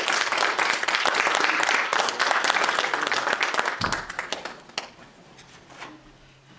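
Congregation applauding, then dying away after about four seconds.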